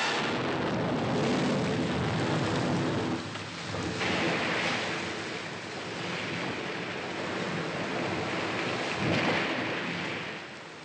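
Heavy surf crashing and churning against rocks, rising in three surges (at the start, about four seconds in and about nine seconds in), then dying down near the end.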